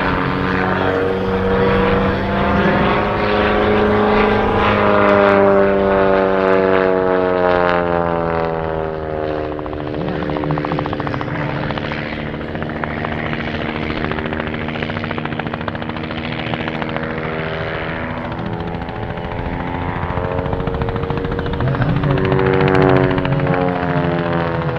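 One Design aerobatic propeller plane flying a display: its engine and propeller drone, sliding down in pitch through the first half as it pulls away or throttles back, then rising in pitch and growing louder again near the end as it manoeuvres back.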